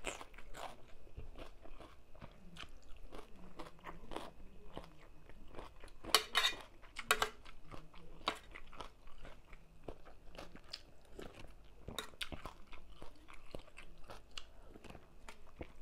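Close-up chewing and crunching of mouthfuls of tam sua, a spicy papaya salad with noodles and raw vegetables: a string of short crisp crunches, loudest about six, seven and twelve seconds in.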